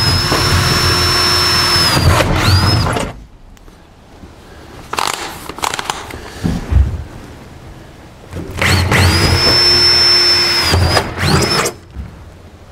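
Cordless drill with a small bit drilling pilot holes through an OSB wall and its sheet-metal siding. There are two runs of about three seconds each: the motor's whine rises to a steady high pitch, then winds down as the trigger is let off, with a short blip right after each run. A few knocks fall between the two runs.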